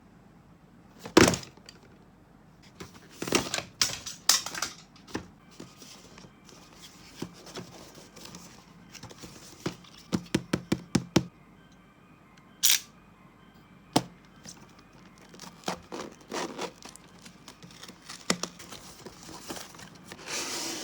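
Toy packaging being handled and opened: irregular rustling and tearing with sharp clicks and knocks, including a quick run of clicks about ten seconds in.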